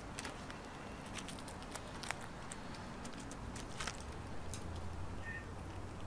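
Gray squirrel chewing and cracking bird seed and nuts: an irregular run of sharp little crunches and clicks over a steady low rumble.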